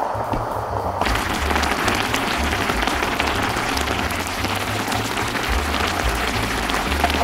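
Braising sauce bubbling briskly around two crucian carp in an electric pot: a dense, even crackle of popping bubbles that starts abruptly about a second in.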